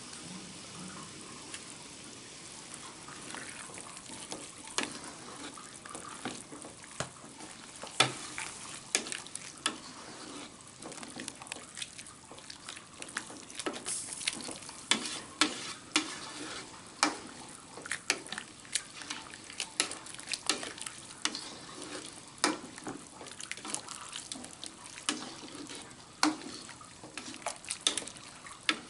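A wooden spatula stirring cassava leaves through boiling coconut milk in an aluminium wok: repeated sharp knocks and scrapes of the spatula against the pan, more frequent after the first several seconds, over a steady bubbling hiss.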